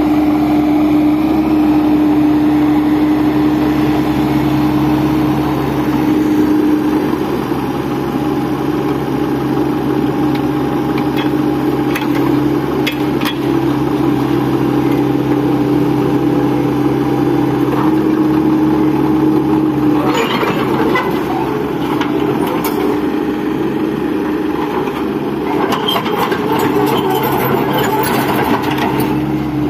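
Bobcat mini excavator's diesel engine running steadily under hydraulic load while the machine levers itself onto a truck bed with its boom, the engine note shifting a couple of times as the controls are worked. Scattered knocks of the tracks and bucket on the truck body come through from about two-thirds of the way in.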